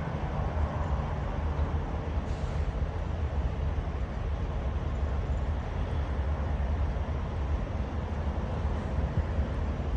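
Steady low rumble of a moving truck heard from inside the cab: engine and road noise with a hiss of wind, and a brief sharper hiss about two seconds in.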